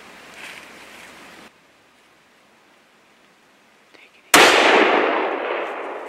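A single gunshot about four seconds in, sudden and very loud, its report dying away through the woods over about two seconds: the shot that hits a bull moose. Before it, a steady hiss cuts off about a second and a half in, leaving near quiet.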